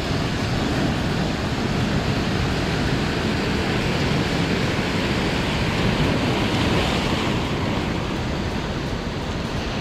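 Ocean surf washing onto a sandy beach, a steady rush of waves that swells a little about two-thirds of the way through.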